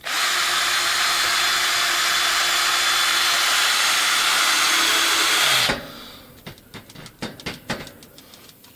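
A power tool runs steadily at full speed for about five and a half seconds, then cuts off, followed by a few light knocks and clicks.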